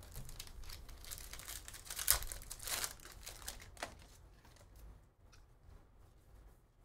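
Foil trading-card pack wrappers being torn open and crinkled by hand, busiest in the first four seconds and loudest about two seconds in, then tapering off.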